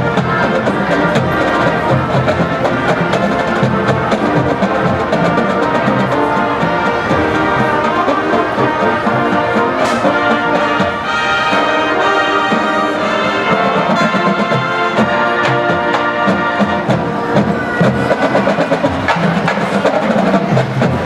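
Brass and percussion music: horns playing a melody over steady drumming.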